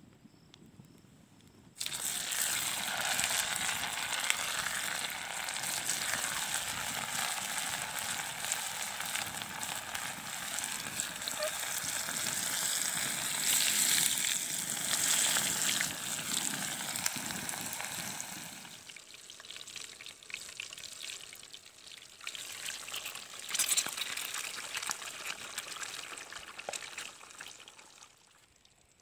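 Chappli kabab patty frying in hot oil in a frying pan, a dense crackling sizzle. It starts abruptly about two seconds in and stays strong, then dies down and comes back weaker before fading near the end.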